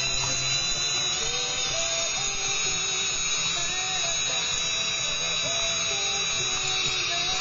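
Electric drill running at a steady speed with a high motor whine, turning the moving pistons and parts of a Marushin 1/8-scale Porsche 911 cutaway flat-six engine model. Faint music plays underneath.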